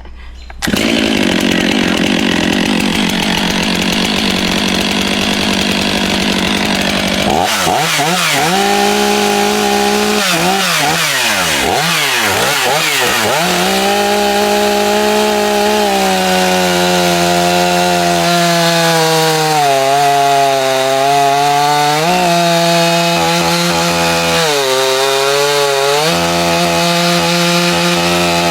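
A chainsaw starts cutting abruptly just under a second in and keeps running hard. After a rough, noisy first stretch, its motor pitch swings up and down, then repeatedly sags for a few seconds and recovers as the chain bogs under load in the cut, which the material indicates is concrete.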